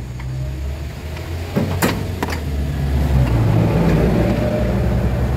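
Scania V8 diesel truck engine being started, a low rumble that grows louder, with a few sharp clicks about two seconds in. The engine is hard to start and has had air bled from its fuel system.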